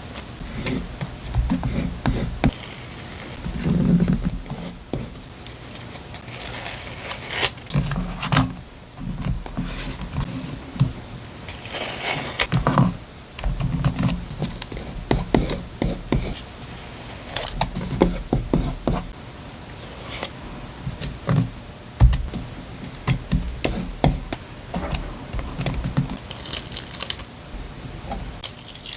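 Paper and craft materials being handled at close range while a journal page is assembled: irregular rustling, crinkling and scraping with sharp little clicks and taps.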